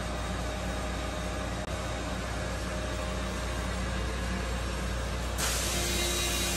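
Steady machinery hum with a low mains-type drone and a few faint steady tones. About five seconds in, a louder hiss and a new steady tone join.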